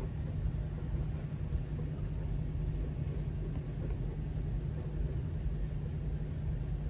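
Steady low rumble of a vehicle in motion, with no breaks or changes.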